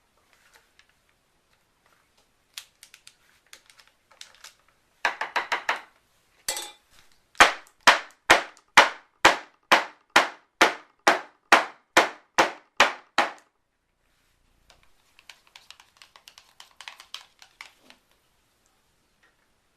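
A filled soap mold knocked repeatedly on a work surface to settle the thickened soap batter: about fourteen sharp, even knocks, roughly two and a half a second, following a brief rattle and scattered clicks.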